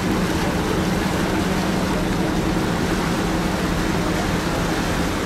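Ferry boat engine running with a steady low hum, and water churning loudly in the propeller wash at the dock slip.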